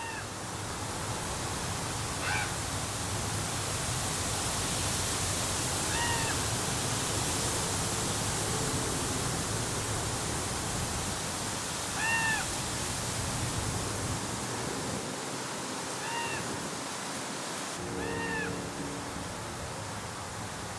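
Common raven calling: about six short, arched calls, spaced a few seconds apart, over a steady background hiss.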